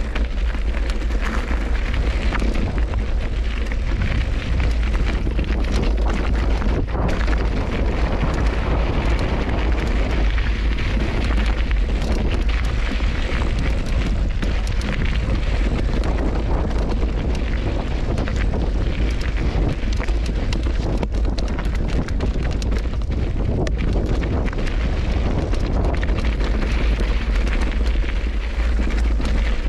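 Heavy wind buffeting on an action-camera microphone, with a mountain bike's knobby tyres crunching and rattling over a loose, rocky trail throughout.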